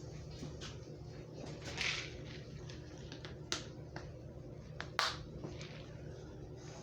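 Grease popping in a skillet as pancakes fry: a few scattered sharp pops and ticks, the loudest about five seconds in, over a steady low hum.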